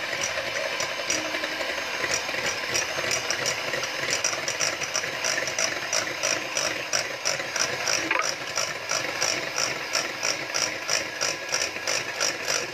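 Electric hand mixer running steadily as its beaters whip eggs in a glass bowl, with a regular clicking over the motor's whir. The eggs are being beaten alone into a foam so the cake comes out light.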